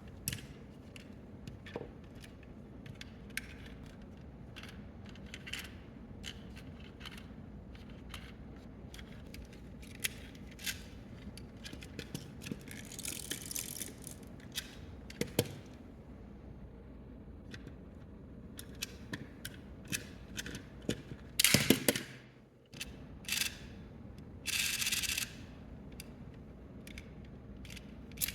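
Small hard-plastic toy parts being handled, giving scattered sharp clicks and taps, with a few short rustling or hissing bursts; the loudest comes about three quarters of the way through.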